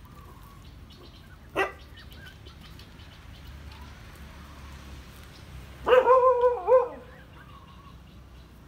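Puppy yelping: one short sharp yelp about one and a half seconds in, then a louder quick run of four or five high, wavering yelps lasting about a second near six seconds in.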